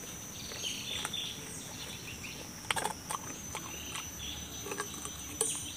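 Crisp crunching and wet chewing of raw green papaya flesh, with the sharpest crunches a little under halfway in, over a steady high-pitched insect drone.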